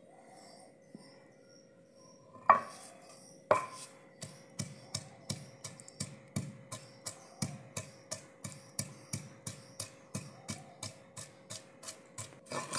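Wooden pestle pounding chopped onion, garlic and green chilli in an earthenware bowl: two heavy thumps about a second apart, then steady pounding at about three strokes a second.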